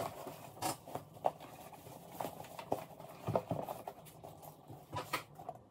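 Handling noise as a leather Salvatore Ferragamo ankle boot is taken out of its cloth dust bag and turned over: soft fabric rustling with scattered light taps and knocks.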